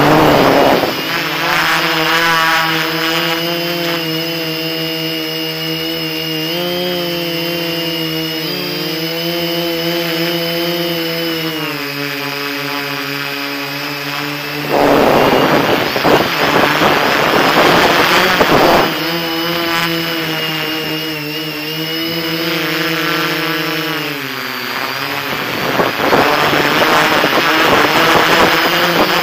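Quadcopter's electric motors and propellers whining close to the onboard camera's microphone, the pitch drifting up and down as the throttle changes. A louder rushing noise swells over the whine about halfway through and again near the end.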